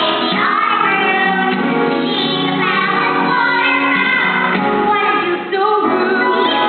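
Musical theatre song: female and children's voices singing with instrumental accompaniment.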